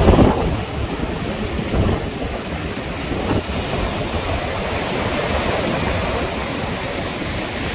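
Rough, storm-stirred sea: surf breaking and washing up the beach in a steady rush, with wind buffeting the microphone, strongest at the very start and again about two seconds in.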